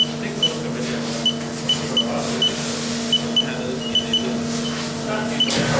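Short electronic beeps, about a dozen at uneven spacing, over the steady electrical hum of a CNC milling machine; a rushing noise starts right at the end.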